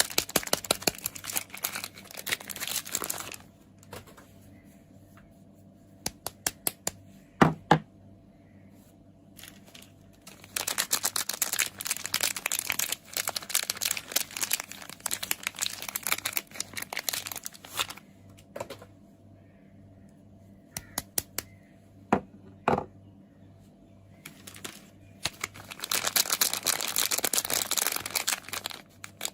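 Soap packaging being unwrapped and torn open: crinkling and tearing in three long bouts, with pauses between them holding a few sharp taps and clicks, the loudest about seven seconds in.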